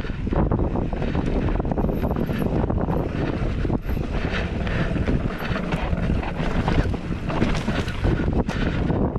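Wind buffeting an action camera's microphone on a downhill mountain-bike descent, over the rumble of tyres on a dirt trail and a constant clatter of the bike over bumps.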